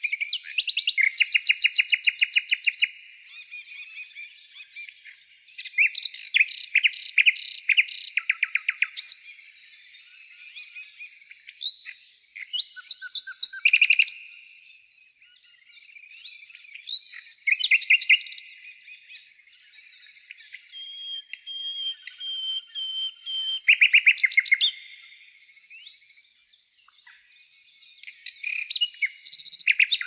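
Songbirds singing: loud bursts of fast, high-pitched chirping trills every few seconds, with fainter chirps and calls between.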